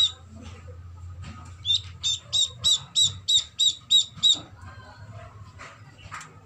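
Itik ducklings peeping: a run of about ten high, evenly spaced peeps, about three a second, starting near two seconds in and stopping after about four and a half seconds.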